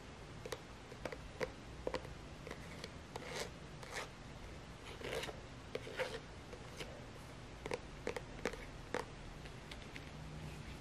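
Plastic acrylic paint tube handled and pressed against a painted canvas: irregular soft clicks and taps, about one or two a second, with a few short scrapes of paint being smeared.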